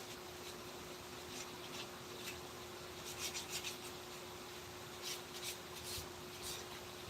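Short scratchy strokes of hand work rubbing or scraping on wood, coming in small clusters of quick strokes over a faint steady hum.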